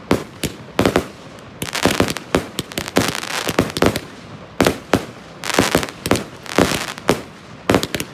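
Aerial fireworks bursting overhead in a rapid series of sharp bangs, some coming in quick pairs. Two longer stretches of dense crackling fall about two and about six seconds in.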